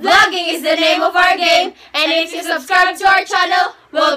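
Group of teenage girls singing together without accompaniment, in two phrases with a short break about two seconds in.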